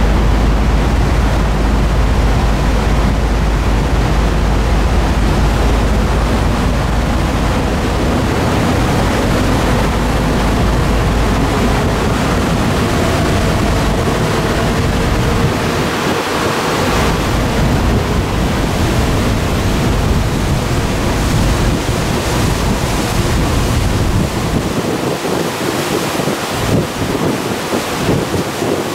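Wind rushing over the microphone on the outer deck of a ferry under way, over the steady rush of the ship and its wash. A heavy low rumble runs through most of it and eases, turning gustier, near the end.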